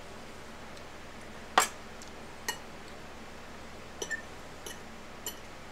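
Cutlery clinking against a dinner plate: about six short, separate clinks, the loudest about a second and a half in.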